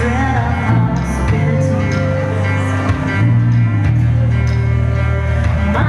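Live rock band music with a strong bass line: acoustic guitar, cello, electric bass and drums playing together, with a woman's singing voice.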